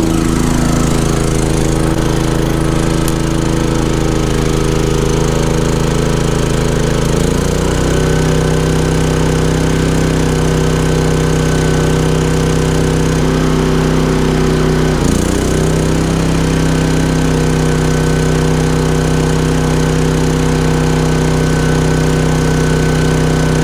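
Champion 3400 dual fuel inverter generator's single-cylinder engine running steadily under load. Its pitch shifts about seven seconds in, then dips and comes back up about fifteen seconds in, as the inverter changes engine speed while an RV's 15,000 BTU air conditioner comes on.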